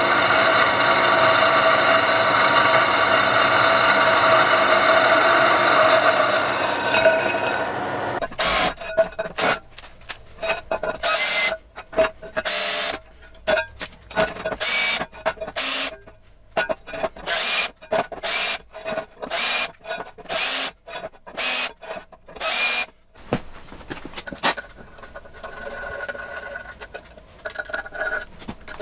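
A drill press runs steadily as it drills through a metal plate, winding down about seven seconds in. Then a handheld drill with a countersink bit whirs in short trigger bursts about a second apart, and faint handling sounds follow near the end.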